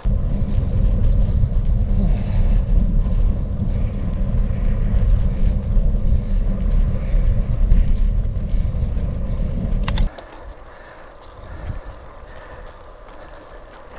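Wind buffeting a microphone on a moving bicycle, with road and tyre noise: a loud, steady low rumble for about ten seconds. It then cuts off abruptly to a much quieter recording of the same ride with little wind rumble, as the audio switches to the other microphone.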